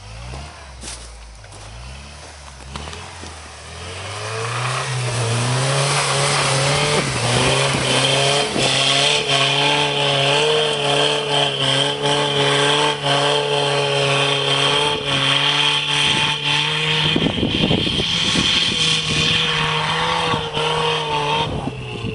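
Toyota 4x4's engine revving up over a few seconds and held at high revs under hard throttle in snow, with a steady hiss over it. About seventeen seconds in the revs break briefly, then climb back, and ease off near the end.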